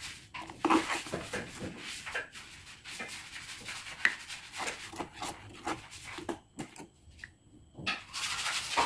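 Steel spoon stirring and scraping around a kadhai of green chilli sauce as it thickens with cornflour, in short irregular strokes, pausing briefly near the end.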